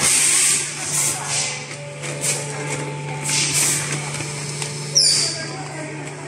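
Thermoforming vacuum packaging machine running: a steady low hum with several short bursts of hiss in the first few seconds and a brief high squeak about five seconds in.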